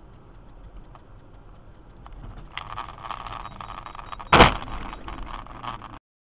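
Car collision heard through a dashcam inside a car on a snowy road. A rough rushing noise starts about two and a half seconds in, then a single loud bang comes about four and a half seconds in. The rough noise goes on until the sound cuts off suddenly.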